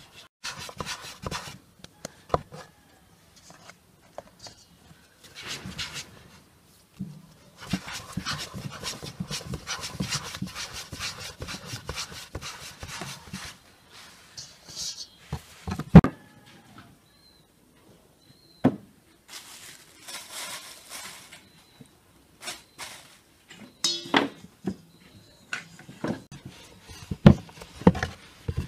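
Hands working balls of dough on a floured wooden board: stretches of soft rubbing and patting, with scattered knocks on the wood, the loudest about halfway through and a cluster near the end as a wooden rolling pin is taken up.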